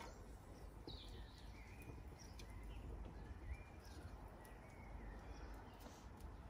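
Sausages sizzling faintly on a gas barbecue grill. Birds chirp briefly several times over it.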